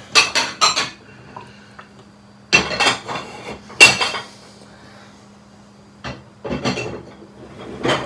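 Dishes and cutlery clinking and clattering as they are handled while loading a dishwasher. The clatter comes in three or four short clusters with quiet gaps between.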